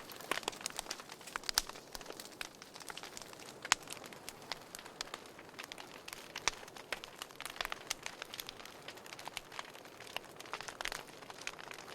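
Wood fire crackling in a fireplace: irregular sharp pops and snaps, several a second, over a soft steady hiss, with an occasional louder pop.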